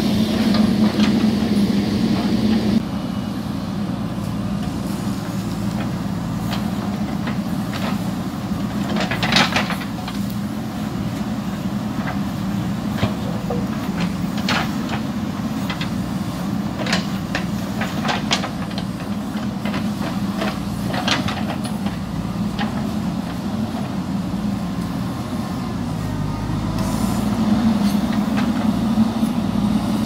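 JCB 3DX backhoe loader's diesel engine running under hydraulic load as the backhoe bucket digs into hillside earth, with scattered knocks and clatters of stones and soil. The engine works harder for the first few seconds and again near the end.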